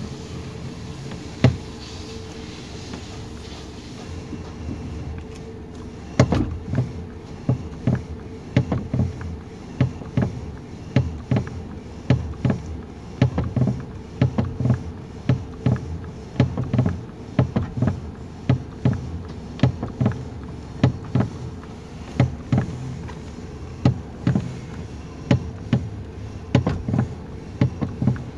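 Repeated clicking knocks (kletek-kletek) from under the steering column of a 2019 Toyota Rush as the steering wheel is turned from lock to lock, over a steady engine idle; the clicks start about six seconds in and come roughly one or two a second. The mechanic traces this noise to loose, dry bolts and bushings, which he cures by lubricating them.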